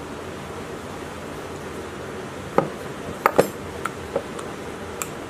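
Metal clinks and knocks as a small diesel engine's cast cylinder head is set down on a workbench and a valve is fitted into it: about six sharp taps between two and five seconds in, over a steady background hiss.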